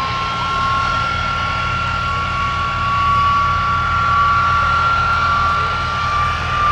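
Replica Fokker Dr.1 triplane's engine running as the aircraft lands on grass: a steady low drone, with a steady high whine over it.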